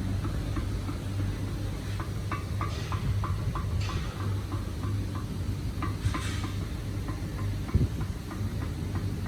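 A run of light metallic clicks, about five a second for a few seconds, from hand work on a car's propeller shaft and its coupling, over a steady low workshop hum.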